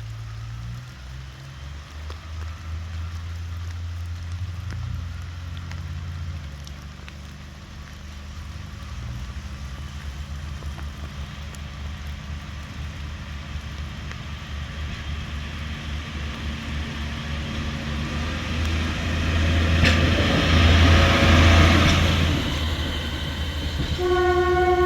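Diesel train running, its low engine rumble slowly building and at its loudest about twenty seconds in, then a train horn sounding right at the end.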